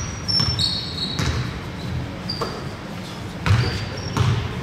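Basketball bouncing on a hard court with short high squeaks, typical of sneakers on the floor. The loudest thumps come about three and a half and four seconds in.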